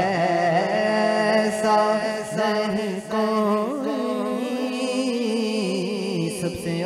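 Male naat reciter singing a drawn-out, wavering melody into a microphone, over a steady low hum.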